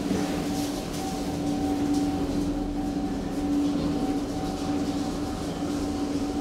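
KONE traction elevator cab in travel: a steady hum and low rumble of the moving car and its drive.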